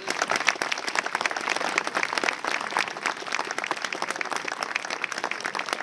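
A crowd applauding, with dense, steady clapping.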